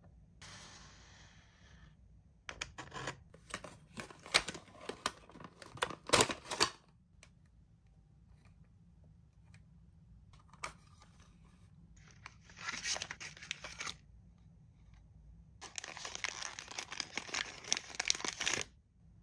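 Toy packaging being torn open and crinkled by hand, in three bouts of tearing and rustling: a long one starting about two and a half seconds in, then shorter ones around thirteen seconds and from about sixteen seconds to near the end.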